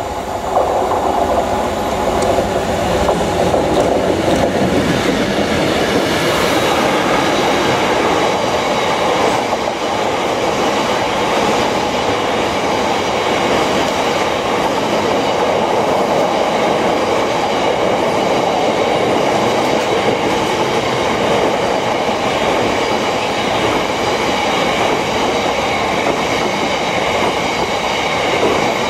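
A Class 66 diesel freight locomotive draws up and passes, its two-stroke V12 engine running. It is followed by a long rake of bogie hopper wagons rolling by in a steady loud rumble, with wheels clattering over the rail joints.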